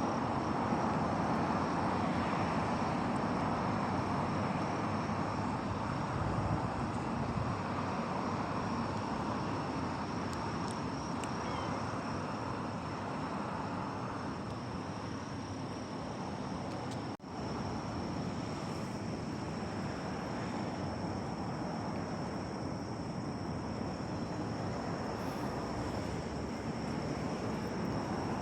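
Steady outdoor background noise with a thin, steady high-pitched whine over it; the sound drops out briefly about seventeen seconds in.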